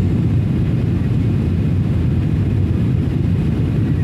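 Steady low rumble of an airliner heard from inside the passenger cabin, engine and airflow noise, as the plane descends on its approach to land.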